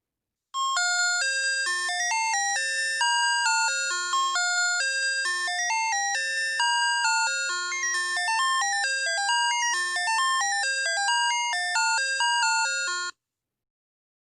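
Electronic school bell chime playing a quick melody of bright, clear notes. It starts about half a second in and cuts off suddenly near the end.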